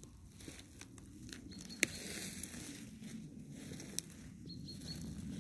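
Footsteps through low forest-floor shrubs and dry twigs, with scattered faint crackles and two sharp twig snaps about two and four seconds in, over a low rumble on the microphone.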